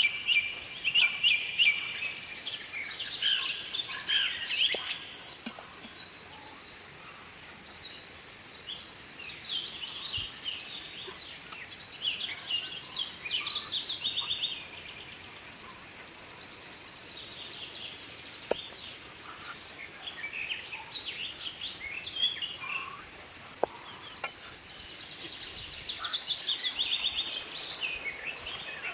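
Wild birds singing and calling: phrases of rapid trills and quick falling runs of high notes come every few seconds over a steady outdoor hiss, with a few faint clicks between them.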